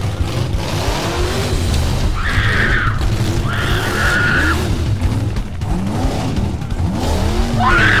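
Car engine revving, with three short tyre squeals; the last one, near the end, slides up in pitch.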